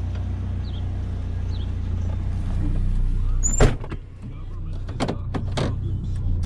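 GMC Sonoma pickup truck running, heard as a steady low hum. About halfway through comes a loud click with a short high squeak, then two more sharp clicks a second or so later.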